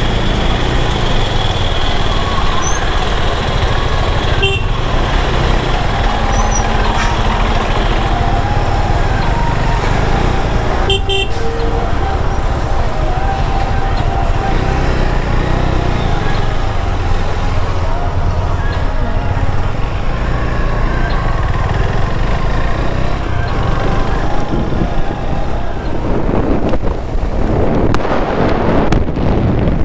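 Motorcycle engine and road and wind noise heard from on the moving bike in highway traffic, steady throughout, with brief vehicle horn toots; the wind noise grows near the end.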